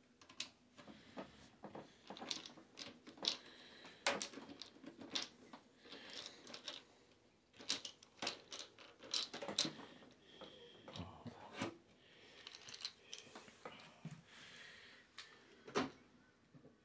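Hands working inside a desktop PC case: scattered sharp clicks and light knocks of plastic and metal parts and cable connectors, with rustling in between.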